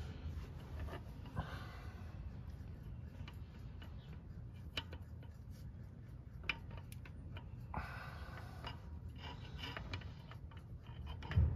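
Scattered light metallic clicks and taps with bursts of rustling as a flexible-shaft magnetic pickup tool is worked up past the crankshaft into a lifter bore, the magnet catching and knocking against the crank throws.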